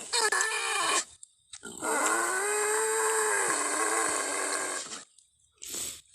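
Sound-effect animal calls voicing Doedicurus, the extinct giant armoured glyptodont: a short call at the start, then a long call of about three seconds whose pitch rises and falls, and a brief noisy burst near the end.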